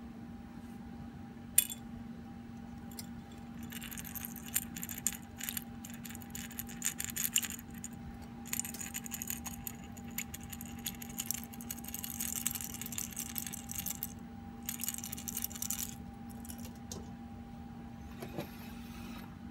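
Small metal carburettor parts, the jet and the float bowl, clinking and rattling against a wire-mesh basket in repeated bursts, with one sharp click about a second and a half in. A steady low hum runs underneath.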